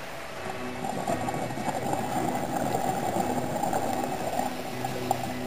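Underwater sound picked up by a dive camera: a steady crackling, bubbling hiss.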